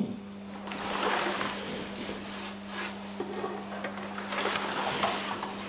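Several short swishing, rustling sounds from iaido practitioners moving with their swords and hakama, over a steady low electrical hum.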